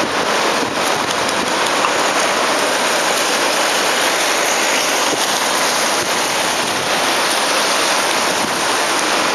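Steady hiss of rain falling on a wet street, an even wash of noise with no engine, horn or tram sound standing out.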